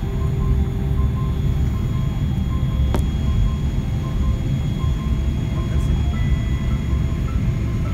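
Steady low rumble inside a jet airliner's cabin as it taxis after landing, the engines and airframe droning through the fuselage.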